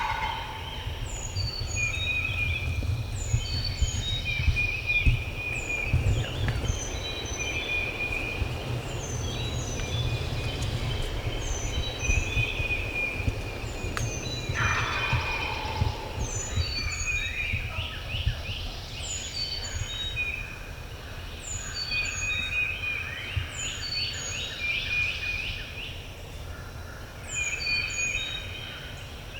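A wild turkey gobbler gobbles once, loudly, about fifteen seconds in, over a continuous chorus of songbirds chirping and repeating short high phrases, with a low rumble beneath that eases in the second half.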